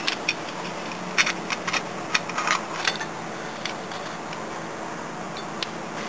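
Light clicks and knocks of the Weber 32/36 carburettor's metal top cover being worked loose and lifted off the carburettor body, a quick run of them in the first three seconds, over a steady background hiss.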